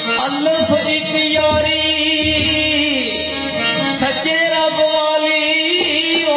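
A man singing a Punjabi folk song into a microphone, accompanied by a harmonium holding steady chords.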